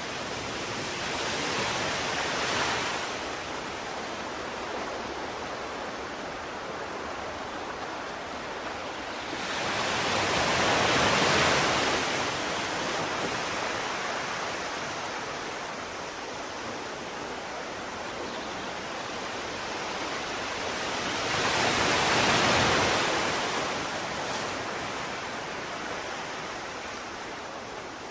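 Small sea waves breaking on a sandy beach: a steady surf hiss that swells three times, about ten seconds apart, as each wave comes in.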